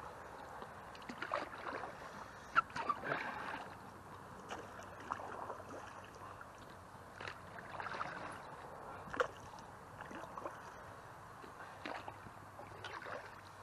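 Canoe paddle dipping and pulling through calm river water beside an inflatable canoe, with irregular small splashes and drips.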